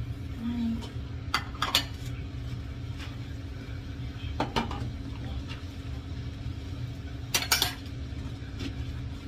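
Dishes and cutlery clinking and knocking together in a few short clatters, the loudest near the end, over a steady low hum.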